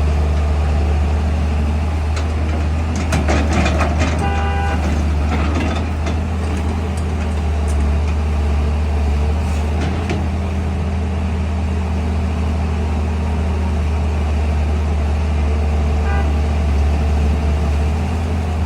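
Heavy diesel engine of a working excavator running steadily with a deep hum. Metal clanks come about three to five seconds in, with a short pulsing tone in the same moment and a fainter one near the end.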